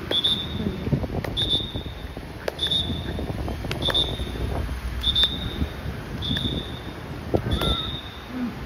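A guide's whistle blown in short, even blasts about once a second, the signal for a fire vehicle reversing into its garage bay, over the low running of the vehicle's engine.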